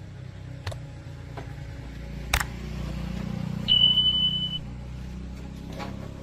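A single high electronic beep lasting about a second, over a steady low hum, with a sharp click shortly before it and a few lighter clicks.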